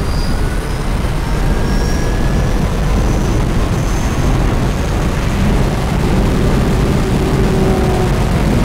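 Tesla Model 3 Performance (dual-motor) accelerating at full throttle, heard from inside the cabin: loud, steady wind and tyre noise with a faint high electric-motor whine that rises in pitch as the car gathers speed.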